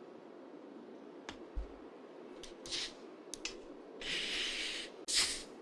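Steady rain noise, slowed down, with several short hissing sounds over it, the longest lasting about a second from about four seconds in.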